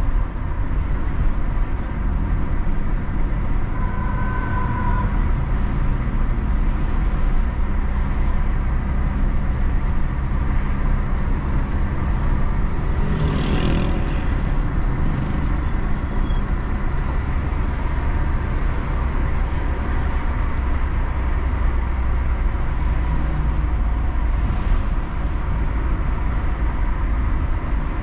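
A car driving through city traffic: steady low engine and road rumble. A short tone sounds about four seconds in, and a louder noise swells and fades about halfway through.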